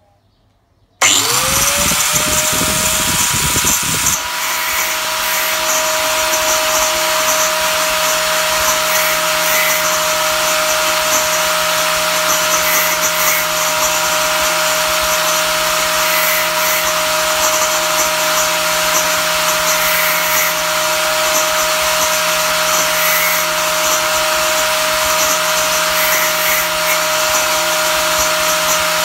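Angle grinder mounted in a homemade saw-blade sharpening jig switched on about a second in, spinning up within a second to a steady high whine and running steadily on.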